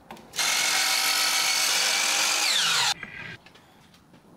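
Miter saw cutting a 3/4-inch MDF strip to length. The motor runs loud and steady for about two and a half seconds, its whine drops in pitch near the end, and the sound cuts off abruptly.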